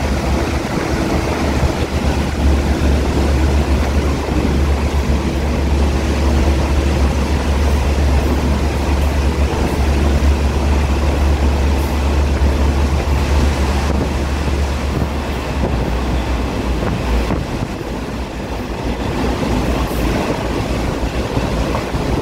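Train carriage running at speed through a tunnel, heard at an open window: a loud steady rush of wheels on rail and wind. A deep drone underneath fades in the last several seconds.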